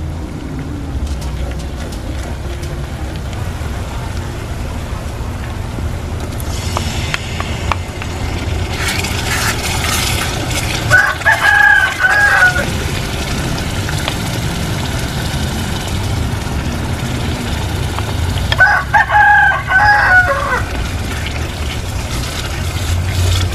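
A rooster crowing twice, about eight seconds apart, over a steady low rumble.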